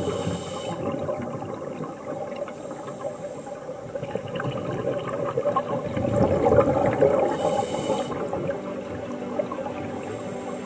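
Muffled gurgling and rushing of water picked up by a camera underwater, swelling louder about six seconds in.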